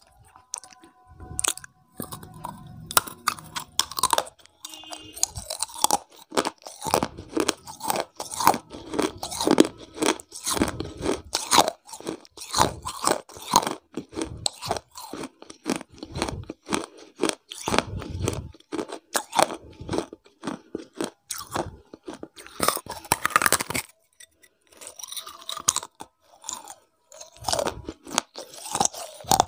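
Close-miked crunching and chewing of baked clay cup (kulhad) pieces, a dense run of sharp crunches as the clay is bitten and ground between the teeth, with a short pause about four-fifths of the way through.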